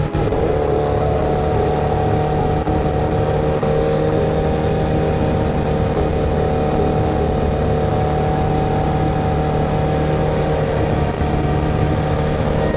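Motorcycle engine running at a steady speed while riding, its pitch holding level, with wind noise.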